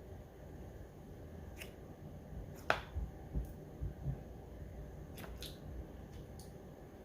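Slime being handled close to the microphone, a melted slime squished and pressed, giving a few scattered small clicks and pops, the sharpest about two and a half seconds in, over soft low thuds.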